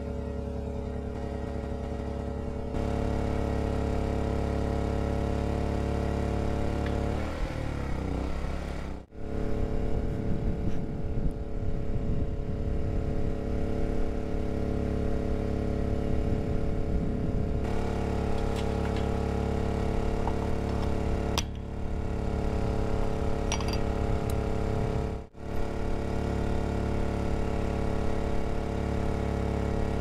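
Background music: sustained droning chords with a deep low end, broken by two brief drop-outs, about nine seconds in and again about five seconds before the end.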